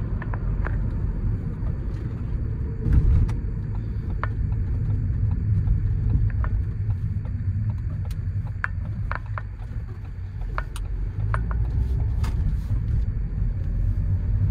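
Steady low road and engine rumble inside the cabin of a moving 2020 Ford Courier 1.5 100 HP van, with a scattering of small clicks and ticks.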